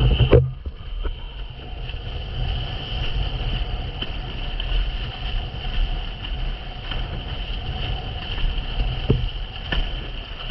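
Wind buffeting an action camera's microphone on a windsurf board speeding over choppy sea, a heavy fluttering rumble mixed with water rushing and splashing. A steady high whine runs under it, and a few sharp knocks stand out, the loudest right at the start.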